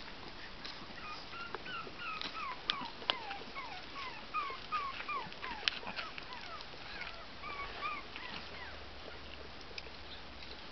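Small dog whining: a run of short, high, falling whines, two or three a second, stopping a few seconds before the end. A few sharp clicks come between them.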